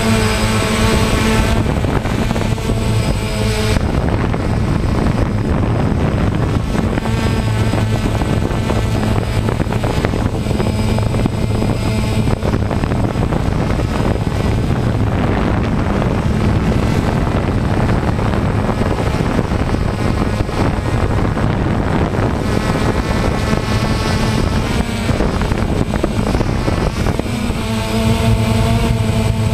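DJI Phantom quadcopter's motors and propellers whirring steadily with a constant hum. A higher whine comes up over it for the first second or two and again near the end.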